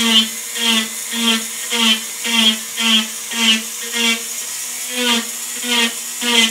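Handheld rotary carving tool with a burr, buzzing in a steady rhythm of a little under two louder pulses a second as the burr is dabbed repeatedly into a wooden board, pressing small textured dents into the surface.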